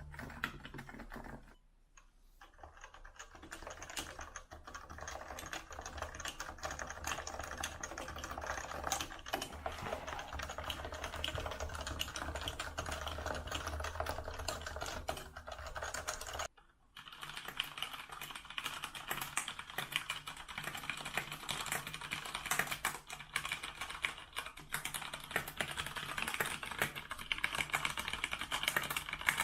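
A computer keyboard being typed on, with rapid, continuous key clicks. About 16 to 17 seconds in there is a brief break, after which the typing sounds brighter and higher.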